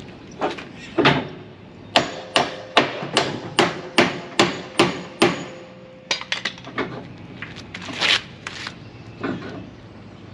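Hammer blows on the locked tandem slider of a semi-trailer, pounded to free it so the axles can be slid: a fast even run of about nine strikes with a ringing note, and a few single strikes before and after.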